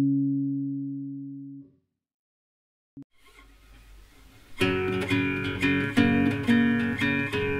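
Background music: a held chord fades out and drops to silence, then plucked guitar music with a steady rhythm starts about four and a half seconds in.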